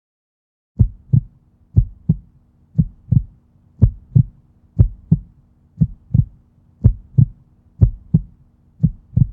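Heartbeat sound: paired lub-dub thumps about once a second, starting about a second in, over a faint steady hum.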